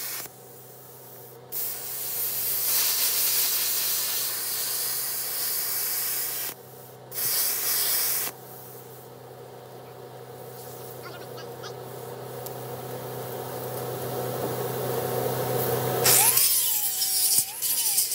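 Hand-held plasma cutter gouging steel: a loud hissing rush of air and arc that stops and restarts twice. After that a steady hum grows gradually louder, and near the end an angle grinder comes on loud, its motor whine wavering as the disc bears on the steel.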